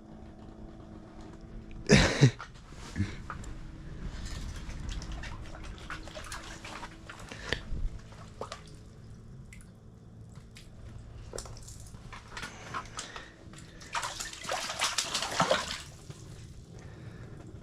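Water dripping and sloshing, with a loud sharp knock about two seconds in and a longer burst of splashing near the end, over a faint steady hum.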